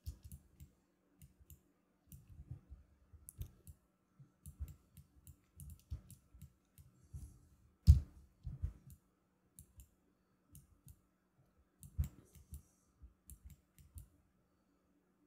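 Irregular clicks and light knocks from a computer mouse and desk handling, close to the microphone. The sharpest, loudest click comes about 8 seconds in and another about 12 seconds in, over a faint steady hum.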